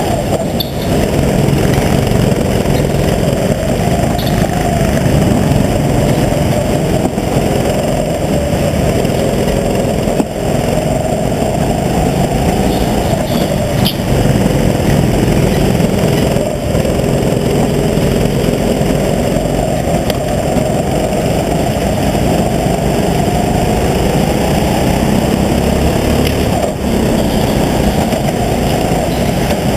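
Kart engine running hard, heard from on board, its pitch rising and falling again and again through the laps.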